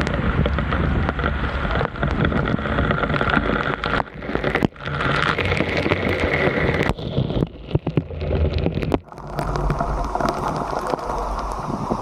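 Waterfall's rushing water, a steady noisy roar, with wind buffeting the microphone. It breaks off abruptly several times.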